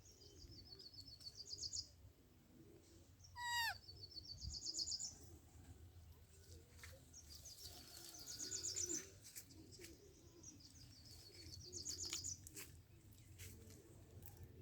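A bird singing: a fast, high trill that rises in pitch, repeated four times a few seconds apart, with one louder sliding call about three and a half seconds in.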